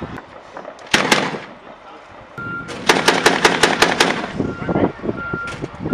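Tripod-mounted MK-19 automatic grenade launcher firing a rapid burst of about nine rounds, at roughly seven a second. A pair of sharp bangs comes about a second before it.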